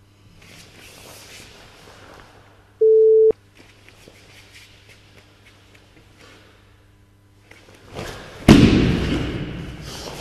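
An electronic interval-timer beep, one steady tone about half a second long, about three seconds in, marking the switch between workout rounds. Near the end a sudden loud thud of bare feet and body movement on the wooden dojo floor as the kata resumes at full power, ringing on in the hall.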